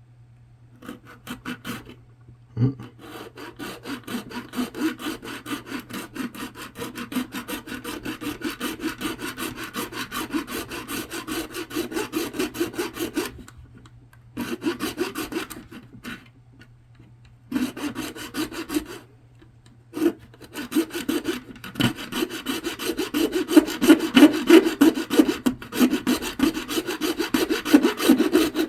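Hacksaw blade cutting through thick solid plastic in rapid back-and-forth scraping strokes, stopping briefly several times, with a knock early on. The plastic is tough and slow to cut.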